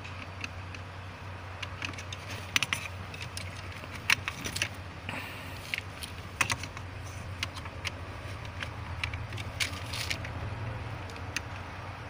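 Irregular light clicks and taps of a test light's probe and fingers against the plastic fuses and fuse box of a car, as the fuses are checked one by one for power. A steady low hum runs underneath.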